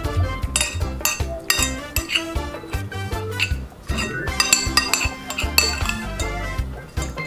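A metal spoon and fork clinking and scraping against a ceramic plate in many short clinks, with background music underneath.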